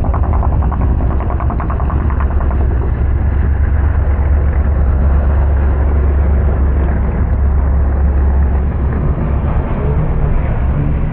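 Pickup race trucks' engines running at a wreck on a dirt oval: a loud, steady low rumble, with a quick rattling engine pulse in the first couple of seconds.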